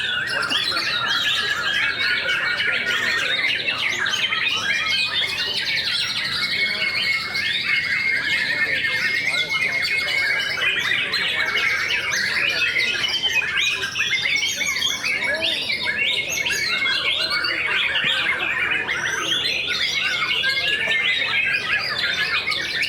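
Dense chorus of many caged white-rumped shamas (murai batu) singing at once, overlapping whistles, trills and chatter without pause.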